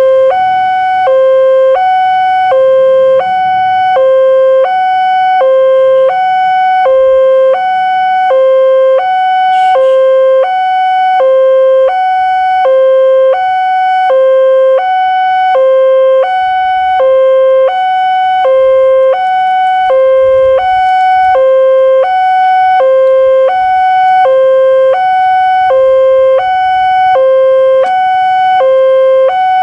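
Railway level-crossing warning alarm from the loudspeaker on the signal mast: an electronic two-tone sound alternating evenly between a lower and a higher note, about one low-high pair a second. It signals that the crossing is closing for an approaching train.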